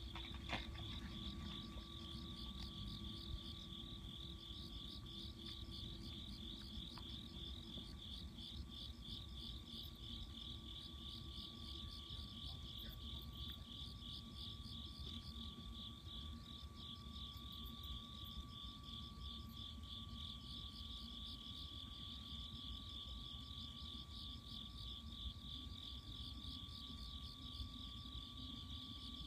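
Night chorus of insects: a high, pulsing trill that keeps on steadily, with a thin steady tone beneath it and a low background rumble.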